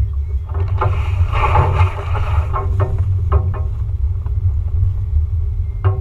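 Off-road vehicle driving slowly along a rough trail, heard as a steady low rumble of engine and wind on a hood-mounted microphone, with a brief rush of noise about a second in.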